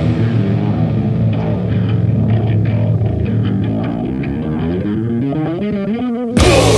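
Death metal instrumental passage: a duller, thinner stretch of guitar over a steady low bass note, with a guitar line climbing in pitch through the second half. Near the end the full band comes back in louder.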